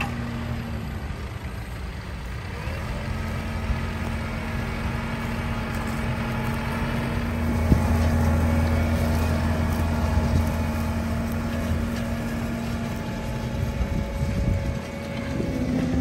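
Large modern farm tractor's diesel engine running steadily under load as it pulls a multi-furrow reversible plough through stubble, getting louder as it passes close by about halfway through.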